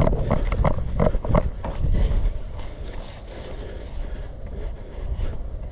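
Running footsteps, a quick series of thuds that thin out and get quieter after about two seconds.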